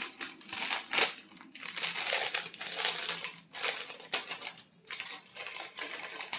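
Clear plastic jewellery packet crinkling as it is opened and handled: a dense run of rustles and crackles with a few short lulls.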